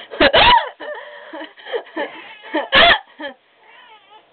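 A woman laughing helplessly with the hiccups. Loud, sharp hiccups come just after the start and again near three seconds in, with quieter squeaky, breathless laughter between.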